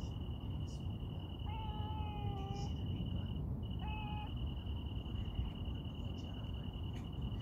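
Stray cat meowing twice: a longer meow about a second and a half in, slightly falling at its end, and a short one about four seconds in. A steady high insect trill runs underneath, breaking off briefly midway, over a low rumble.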